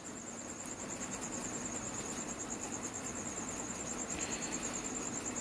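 An insect chirping steadily in a fast, even pulse, high-pitched, over a faint background hiss.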